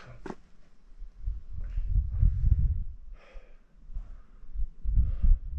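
A person breathing hard from exertion in several heavy, uneven breaths, over low rumbling on the microphone.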